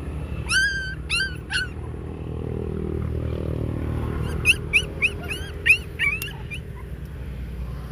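Abandoned young puppies crying with short, high-pitched whimpers and yelps. There are three cries in the first couple of seconds, then a quick run of several more past the middle.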